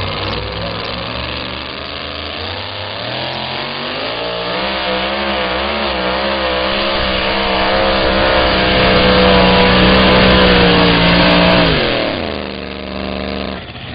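Two-wheel-drive pulling truck's engine at full throttle: the revs climb with a wavering pitch, hold high and steady, then drop sharply near the end.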